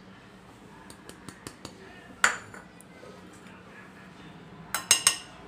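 Steel spoon and utensils clinking against a ceramic bowl: a few light taps, one sharper clink a little over two seconds in, and a quick cluster of clinks near the end.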